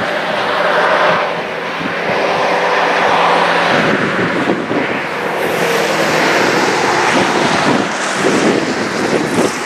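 Freight train running along the track: a steady wash of wheel and rail noise with faint held tones, mixed with wind on the microphone.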